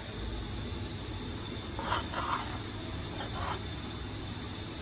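Metal spoon stirring rice with vegetables in a large aluminium pot, a few soft scrapes about two and three and a half seconds in, over a steady low hiss.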